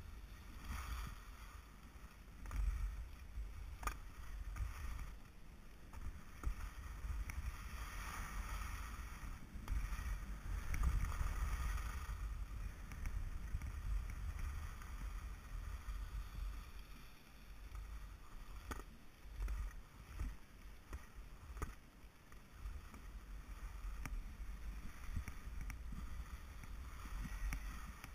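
Skis sliding and scraping over groomed snow, an uneven hiss that swells and fades with each turn, over a steady low rumble of wind on the camera's microphone. A few sharp clicks break in here and there.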